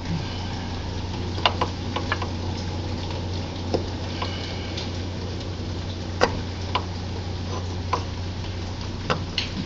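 Scattered, irregular light metal clicks and taps from a metal hand tool working against the underside of a lawnmower engine, over a steady low hum.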